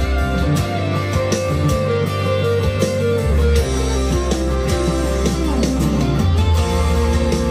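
Monoprice Indio Cali Classic Strat-style electric guitar played through an amp, a continuous run of picked notes and phrases, with sustained low notes underneath.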